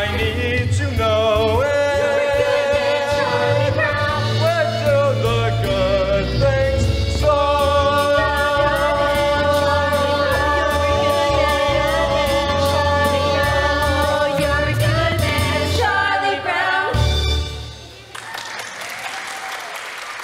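Stage-musical cast singing together in chorus with instrumental accompaniment, ending on a long held final chord that cuts off sharply about seventeen seconds in. Audience applause follows.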